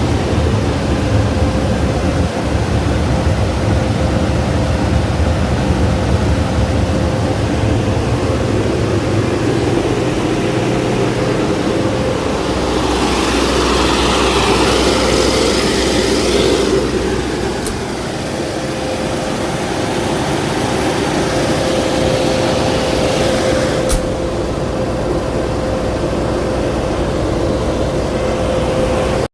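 Keypower generator set's engine running steadily with a continuous hum. A louder hiss swells for a few seconds about halfway through, and two short clicks come later.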